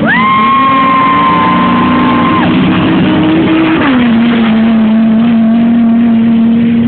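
Off-road race vehicle's engine running hard under racing load. It revs up sharply at the start, holds high for a couple of seconds, then drops back to a lower, steady pitch about four seconds in.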